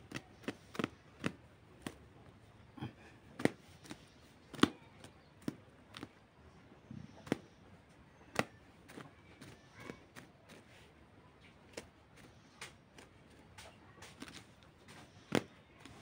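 Broiler chickens pecking at grass and straw: irregular sharp taps and clicks of their beaks, about one or two a second, some much louder than others.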